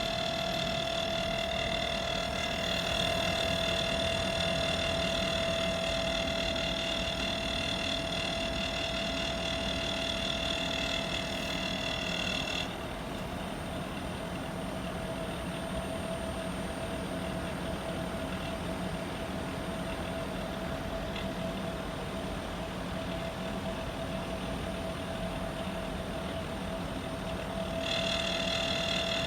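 Air conditioner outdoor unit running with a steady hum under a high whining tone, the unit's abnormal noise. The whine cuts out abruptly about twelve seconds in and comes back near the end, while the hum carries on.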